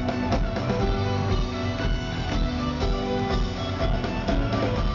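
Live folk-rock band playing, heard from the audience: strummed guitars over double bass and drums.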